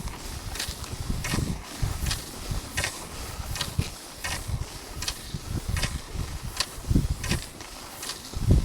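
Rhythmic crunching strides in snow, about one every three-quarters of a second, from travel on skis or foot, with wind buffeting the microphone.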